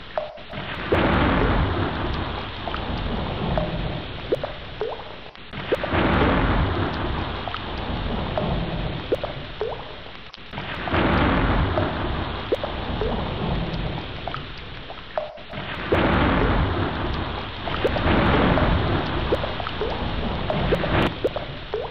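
Heavy rain falling steadily, with deep thunder rumbling and swelling again about every five seconds.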